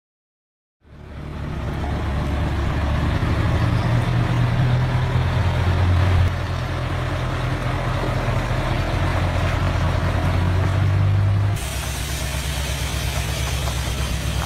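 Heavy timber truck's diesel engine running steadily with a low rumble, starting about a second in. Near the end the sound changes abruptly, with more hiss over the engine.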